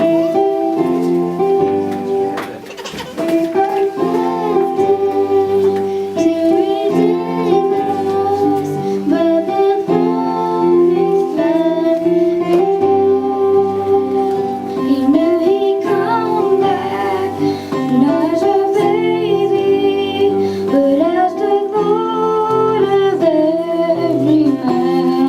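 Instrumental interlude of a Christmas song's accompaniment between sung verses: steady sustained chords with a melody line moving over them.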